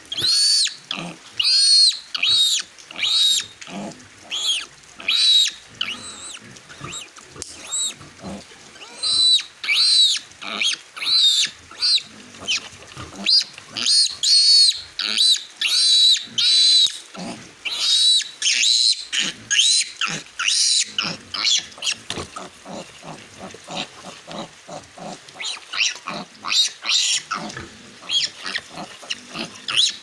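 Newborn piglet squealing over and over in short, high-pitched squeals while it is held and restrained: distress squeals.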